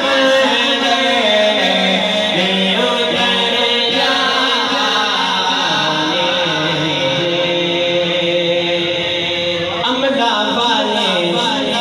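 Male voice singing a devotional Urdu/Punjabi kalam (naat) in a drawn-out, melismatic line, holding notes and gliding between pitches without clear words.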